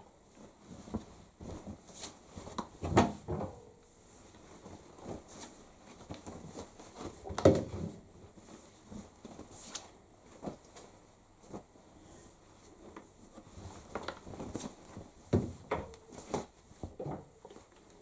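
Shirts being loaded by hand into the drum of a Hoover condenser tumble dryer: irregular rustling, clicks and knocks, the two loudest knocks about three and seven and a half seconds in, with a run of them near the end.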